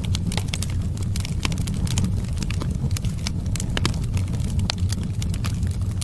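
Wood fire crackling, with frequent sharp irregular pops over a steady low rumble.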